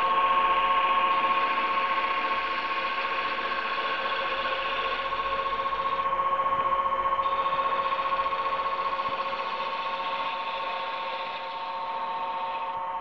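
Wood lathe running with a steady whine while a gouge cuts into a spinning stack of wooden discs, making a rushing hiss. The hiss dies away near the end while the whine goes on.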